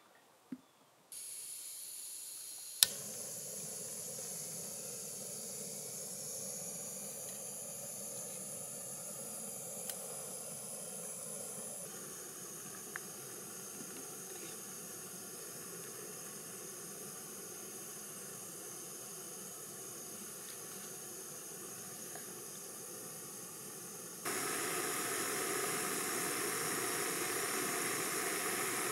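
Jetboil canister stove's gas burner running with a steady hiss, with a single sharp click near the start. The hiss steps up louder near the end.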